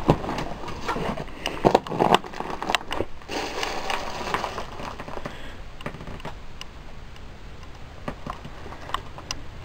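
Footsteps crunching and clattering over scattered debris on a floor: irregular clicks, crackles and rustles, busier in the first three seconds and sparser after.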